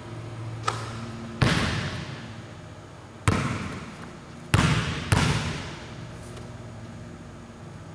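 Basketball bouncing on a hardwood gym floor, four sharp bounces, each ringing out in the large hall's echo. A lighter tap comes just before the first bounce.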